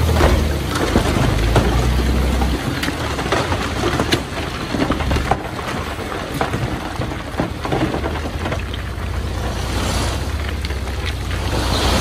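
Heavy diesel earthmoving machinery running with a low, steady drone that is strongest for the first couple of seconds and builds again near the end, over scattered clicks and knocks of soil and stones shifting.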